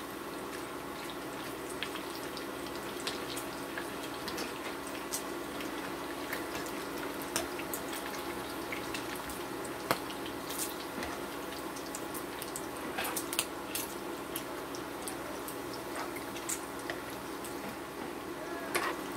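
Bacon sizzling in a nonstick pan, with frequent sharp pops of spitting fat and the occasional click of metal tongs against the pan, over a steady low hum.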